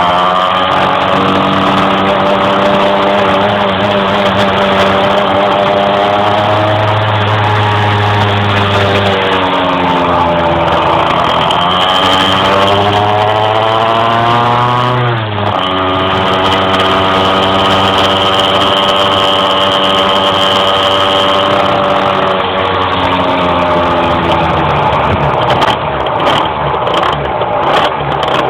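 Small two-stroke motorbike engine under way, its pitch climbing and falling several times as it is ridden, with a sudden drop about halfway through before it climbs again. The owner says it struggles to rev up while riding.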